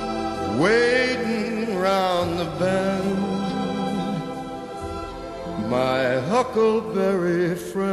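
Background music: a voice sings long held notes with vibrato, sliding up into each phrase, over a sustained accompaniment.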